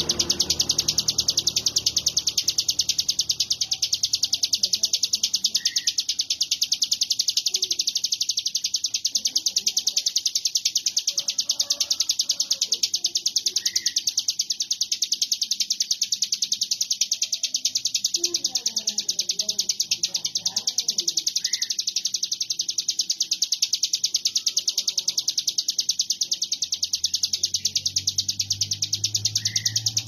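Hill prinia (ciblek gunung) singing in the fast, buzzing 'konslet' style: a continuous high-pitched rapid chatter with no pause.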